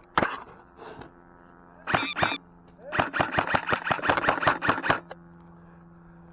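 Airsoft gunfire: a sharp shot just after the start, a quick pair of shots about two seconds in, then a rapid burst of about seven shots a second lasting some two seconds.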